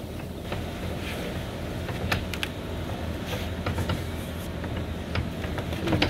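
Handling noise from a phone held against a wooden fence: a steady low rumble with scattered light knocks and taps of hands and bare feet on the fence boards.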